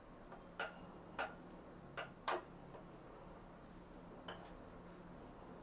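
A few faint, light clicks of a spoon against a bowl while lentil fritter batter is being mixed, four in the first couple of seconds and one more later.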